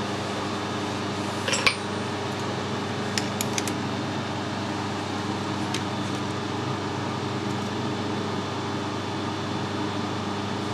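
Steady mechanical hum of shop machinery with a few light metallic clicks as a digital caliper is set against a turned metal workpiece: one click about a second and a half in, a quick cluster around three and a half seconds, and one more near six seconds.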